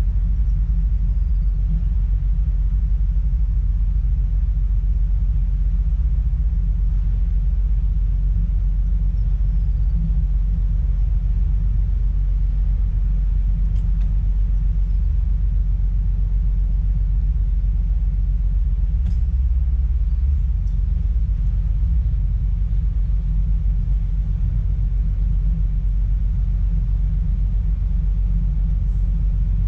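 Komatsu PC200 excavator's diesel engine running with a steady low rumble.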